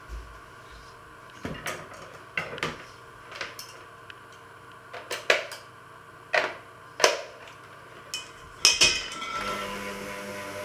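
Metal mixer beaters clicking and knocking as they are handled and snapped into an electric hand mixer, a dozen or so sharp separate clicks. About nine seconds in, the hand mixer's motor starts and runs steadily as it begins beating dough in a steel bowl.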